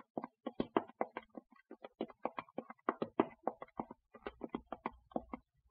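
Radio-drama sound-effect footsteps of several people walking together, a quick uneven run of short knocks.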